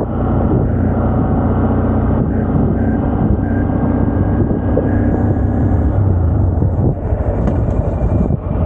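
Honda Grom's 125cc single-cylinder engine running as the motorcycle is ridden, a steady engine note for about six seconds that then changes and briefly drops off around seven seconds in.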